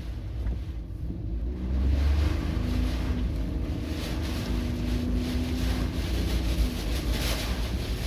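Strong, gusty wind of an approaching typhoon buffeting the microphone in a deep rumble, with the sea's surf behind it. A low steady hum runs under it from about two seconds in until near the end.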